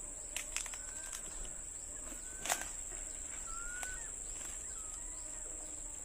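Steady high-pitched insect drone with a few short rising bird whistles and scattered sharp clicks, the loudest about two and a half seconds in.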